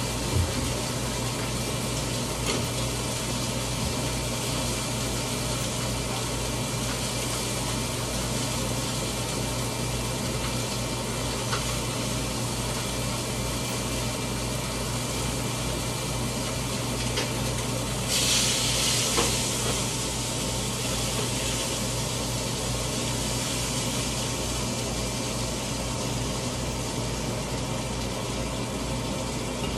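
Food frying in a pan on the stove, a steady sizzle over a constant low hum. It flares into a louder hiss for about two seconds, two-thirds of the way through.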